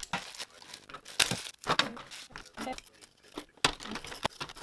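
Small pedicure tools and a plastic storage bin being handled in a drawer: irregular rustling with light knocks and clicks.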